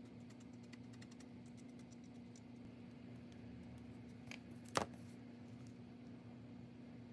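Faint light scratching ticks of a stiff brush working pigment on a plastic model hull, over a steady low hum. Then two sharp taps about half a second apart, the second the loudest, as the brush is set down on the bench and a small applicator bottle is picked up.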